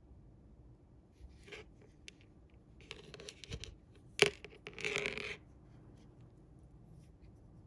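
Hands handling monofilament fishing line and small terminal tackle on a tabletop: scattered soft rustles and scrapes, with one sharp click a little past four seconds in as the tackle is handled.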